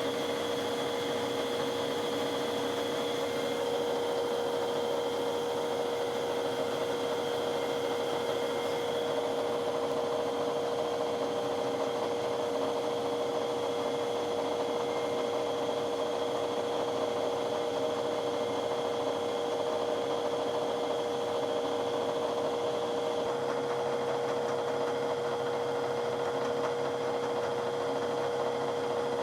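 Milling machine running steadily with a constant tone, its spindle turning in reverse as an upside-down fly cutter takes fine facing cuts on brass.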